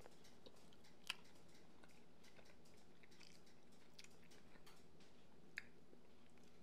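Faint eating sounds: quiet chewing, with a fork clicking sharply against a ceramic plate twice, once about a second in and once near the end.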